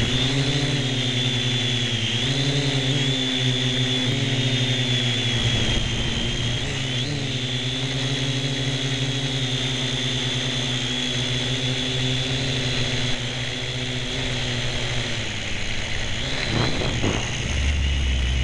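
Syma X1 quadcopter's four small coreless motors and propellers whining, heard close up through a camera mounted on the drone. The pitch wavers up and down as the throttle changes, with a low rumble near the end as it comes down toward the grass.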